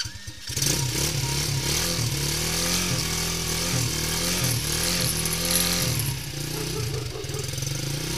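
Quad bike's 125 cc four-stroke petrol engine catching on the electric starter about half a second in. It runs with its speed rising and falling for several seconds, then settles to a steadier, slightly quieter run near the end.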